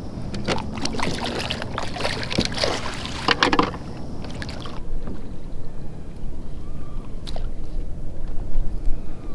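Clicks, knocks and rattles of fishing gear being handled on a kayak for the first four to five seconds, then it goes quieter, with a low rumble of wind on the microphone near the end.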